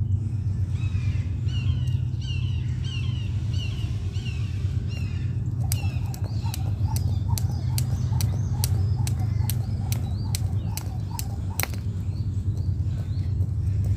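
Jump rope slapping the concrete path in a steady rhythm of about two to three strikes a second, starting about six seconds in and stopping about twelve seconds in. A bird chirps repeatedly throughout, over a steady low rumble.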